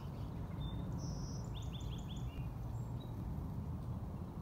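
Songbirds calling: a few short high whistled notes, then a quick run of four falling chirps about halfway in, over a steady low background rumble.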